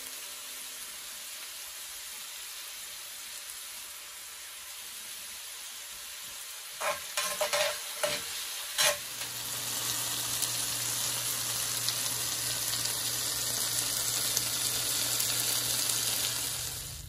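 Chopped okra, tomato and onion sizzling in a cast-iron skillet, with metal tongs knocking and scraping against the pan a few times around seven to nine seconds in as the vegetables are turned. The sizzle grows louder after that.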